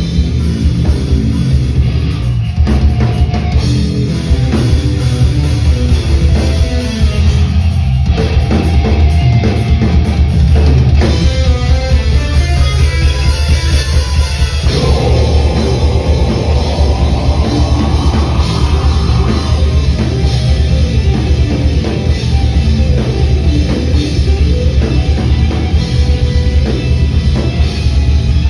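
Deathcore band playing live: a drum kit and heavily distorted electric guitars, loud and dense, with a rising glide in pitch about halfway through.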